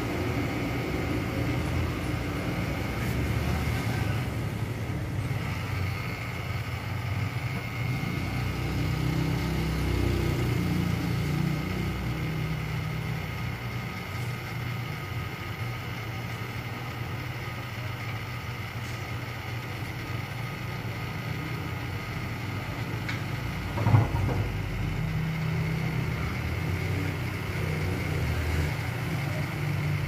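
Small battery-powered nail dryer's fan running continuously, a steady whir with a thin high whine, over a low rumble that swells and eases. A single sharp knock about 24 seconds in.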